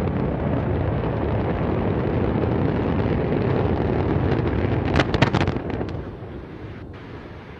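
Antares rocket exploding at its launch pad: a steady, deep rumble of the blast and fire, with a quick cluster of sharp cracks about five seconds in, after which the rumble fades.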